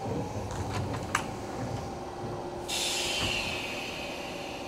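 Odakyu 1000 series electric train at the station platform: a low rumble with a steady hum, a sharp click about a second in, then a sudden hiss near three seconds in that slowly fades.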